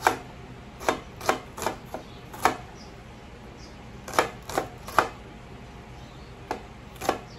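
Kitchen knife slicing a red onion on a plastic cutting board. About a dozen sharp, irregular knocks of the blade hitting the board come in two runs, separated by a pause of more than a second.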